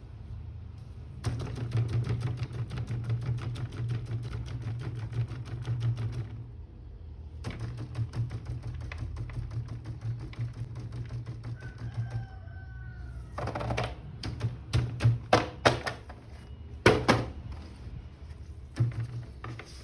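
Hard plastic toys being handled: long runs of rapid clicking and scraping, then a series of louder separate knocks in the last third.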